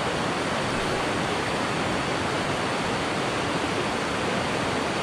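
River rapids rushing over boulders: a steady, even rush of water.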